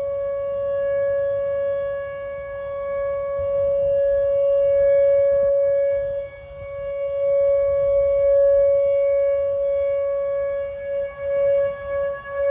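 Tornado warning siren sounding one steady tone with overtones. Its loudness swells and fades, with a brief dip about six seconds in and quick wavers near the end.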